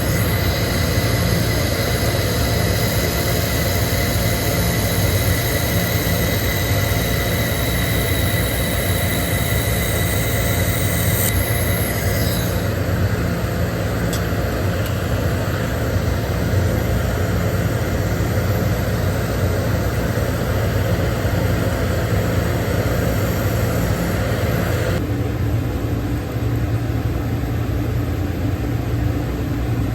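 Steady machine hum and hiss with a few constant tones, changing character abruptly twice, about twelve seconds in and again near twenty-five seconds.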